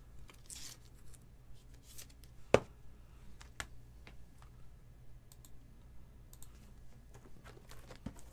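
Trading cards and clear plastic card holders being handled on a tabletop: scattered soft clicks and rustles, with one sharp plastic click about two and a half seconds in. A low steady electrical hum runs underneath.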